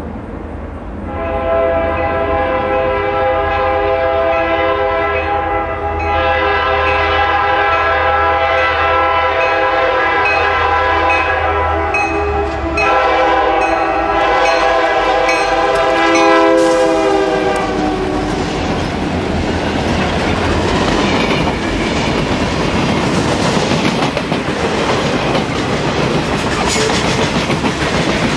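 Diesel freight train with an EMD SD40-2 in the lead sounding its air horn for a grade crossing. The horn plays as a few long blasts over the low rumble of the locomotives and cuts off about 18 seconds in. After that the freight cars roll past with steady wheel noise and the clickety-clack of wheels over rail joints.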